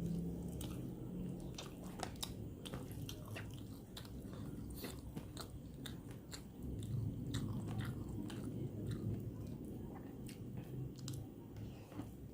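Close-miked chewing of a nasi padang meal, with many short, irregular crunches as something hard and crisp is bitten and chewed.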